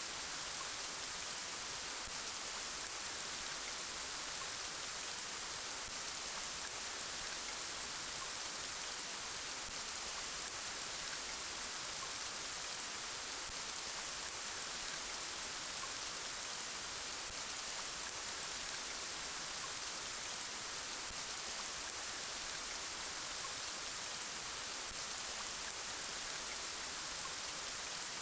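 Steady rainfall, an even hiss of many drops with no let-up or change.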